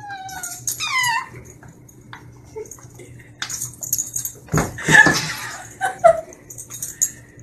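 A pet animal's short whining cries, each falling in pitch, in the first second or so, then a loud rough noisy burst about five seconds in.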